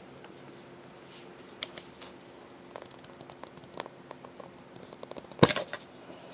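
Handling noise as the top is worked off a GSI Minimalist cook set with small items packed inside: scattered light clicks and taps, and one sharp knock about five and a half seconds in, over a faint steady hum.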